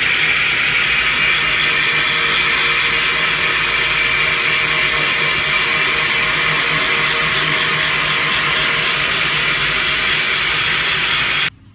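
Angle grinder running steadily under load, grinding steel clean to prepare the spot for a weld. It cuts off suddenly near the end.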